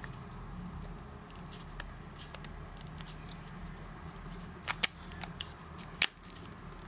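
Faint small ticks as a tiny flat screwdriver works a hinge screw on a Nokia E90. Then a few sharp clicks come from the phone's hinge and decorative cap as they are handled; the loudest is about six seconds in.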